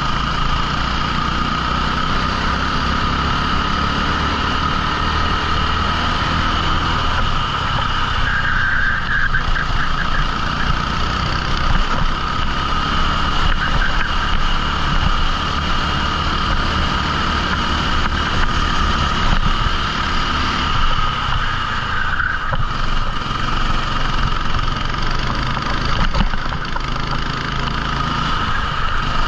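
A 14 hp rental kart engine running hard during a race, its pitch falling and rising again as the kart slows and accelerates, with a steady high whine over the engine note throughout.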